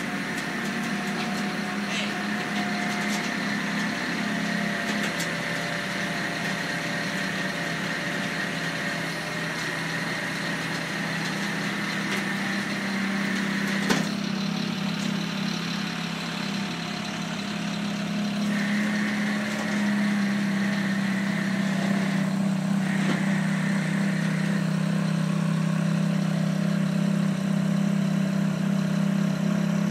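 A vehicle engine idling steadily, with one sharp click about fourteen seconds in.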